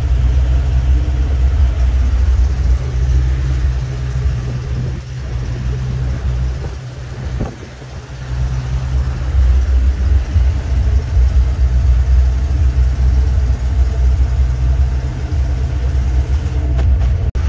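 Birchwood 22 river cruiser's engine running steadily at slow cruising speed, heard from inside the cabin as a low, even drone. It turns briefly quieter about halfway through.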